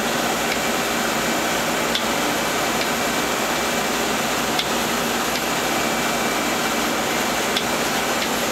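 Okuma Multus B300 CNC lathe running: a steady whir with a low hum, broken by a few faint ticks.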